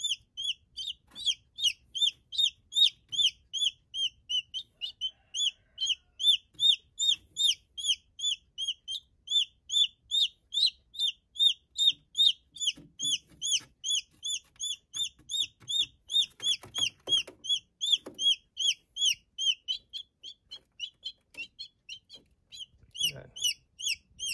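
Newly hatched chick peeping steadily, short high peeps about three a second.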